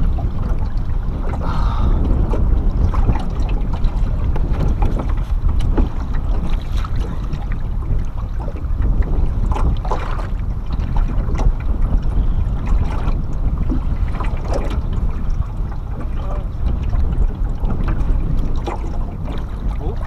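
Wind buffeting the microphone in a steady low rumble, with choppy water slapping and splashing against the side of a small john boat.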